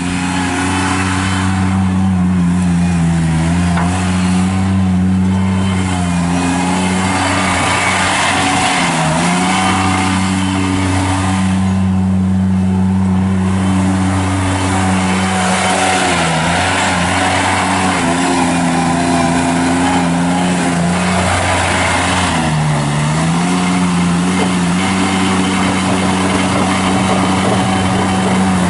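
Avant 420 mini articulating loader's Kubota diesel running steadily at working speed. Its engine note sags briefly three times, as when the hydraulics or drive put load on it.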